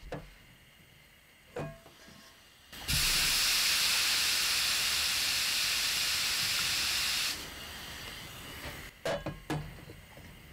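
Hot frying pan set down on a wet cloth, hissing loudly as the steam flashes off, about four seconds before the hiss cuts off suddenly; this cools the heated pan before the pancake batter is poured. A few light knocks from handling the pan come before and after.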